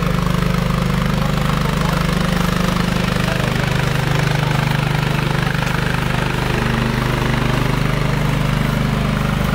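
Heavy military truck's engine idling steadily, heard up close: a deep, even hum that doesn't change.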